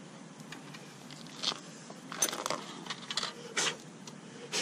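A handful of short, irregularly spaced clicks and clinks of small metal hardware being handled while a bolt-on bracket is fitted under a motorcycle's tail.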